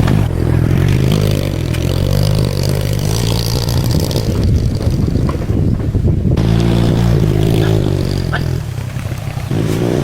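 SYM EZ 110 motorbike engine running steadily at a low idle just after being started.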